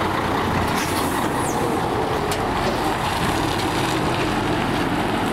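Heavy hook-loader fire truck's diesel engine running steadily as the truck pulls slowly past close by and moves away.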